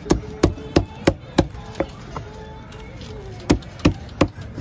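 Heavy fish-cutting knife chopping through a large fish onto a wooden block: a run of six sharp chops at about three a second, a pause of over a second, then three more.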